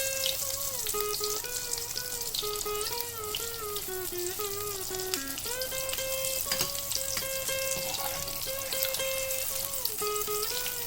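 Dal puri deep-frying in hot oil: a steady sizzle, under a simple background instrumental melody.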